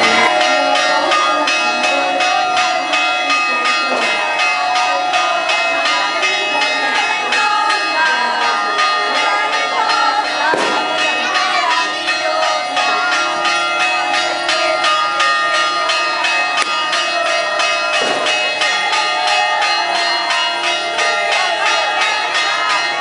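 Church bells ringing a fast, steady peal of rapid repeated strikes, with a crowd murmuring underneath.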